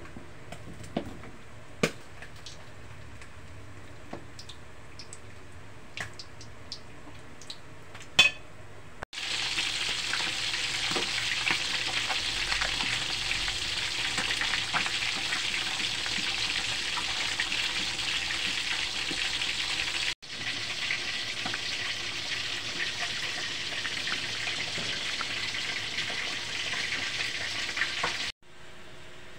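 Whole fish frying in hot oil in a wok: a steady sizzling hiss full of small crackles and spatters, which starts about a third of the way in, drops out briefly near two-thirds and stops just before the end. Before it there is only a low background with a few light clicks.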